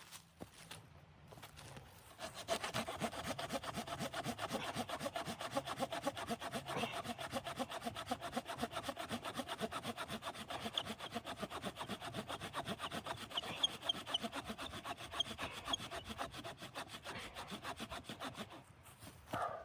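Hand saw cutting through wood in quick, even back-and-forth strokes, starting about two seconds in and stopping just before the end.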